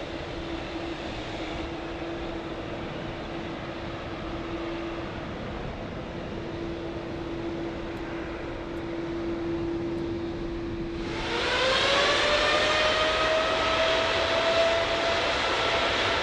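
Jet airliner engines running with a rushing noise and a single steady whine. About eleven seconds in, the sound switches to a louder jet engine whine that rises in pitch over several seconds, like engines spooling up.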